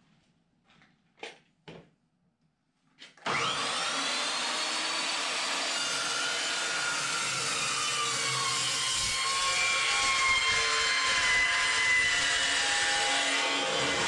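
A few faint knocks, then about three seconds in a metal chop saw starts up and cuts through steel square tubing with a loud, steady whine. Its pitch sags slightly as the blade works through the steel.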